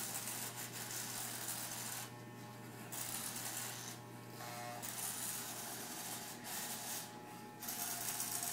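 Electric hair clippers running with a steady buzz as they shave hair off a man's head. The rasp of the cutting thins out briefly three times while the motor hum carries on.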